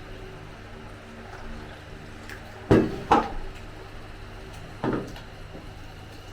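Three dull knocks: two close together about three seconds in, and a softer one about two seconds later, over a faint steady low hum.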